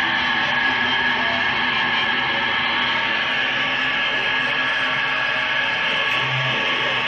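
Experimental music: a dense, steady drone of many held tones layered over a hiss, with a short low note sounding twice near the end.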